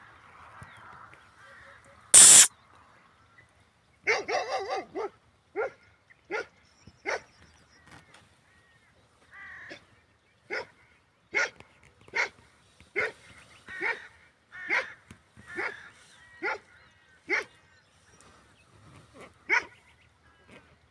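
A Kangal dog barking: a quick run of barks about four seconds in, then single barks at an even pace of a little over one a second. A loud sharp knock about two seconds in is the loudest sound.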